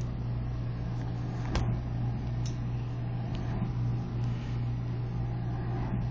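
A steady low hum, with a few light clicks and taps from the tablet being handled, the sharpest about a second and a half in.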